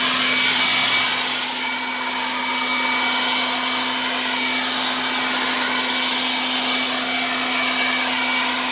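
Ryobi 8-amp jet fan electric leaf blower running steadily: a constant motor whine over rushing air.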